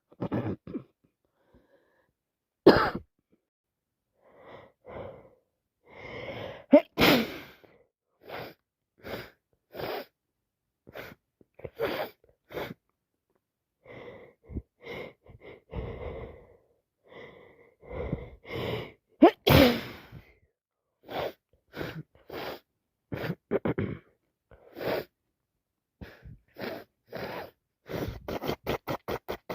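A person with a bad head cold sneezing over and over, wet sneezes with shorter sounds in between. The loudest come about 3, 7 and 19 seconds in, and a quick run of short bursts comes near the end.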